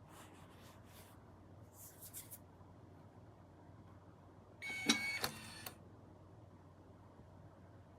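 Small biometric pistol safe being handled: a few faint clicks, then about five seconds in a brief burst of clicking and rattling with a short tone.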